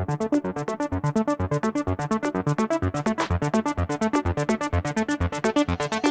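Electronic background music: a fast, even run of synthesizer notes with a steady beat.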